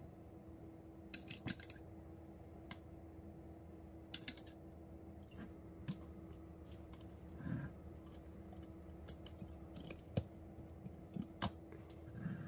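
Scattered light clicks and taps of a metal spoon against a glass jar, then of the jar's glass lid and wire clasp being closed. A faint steady hum lies underneath.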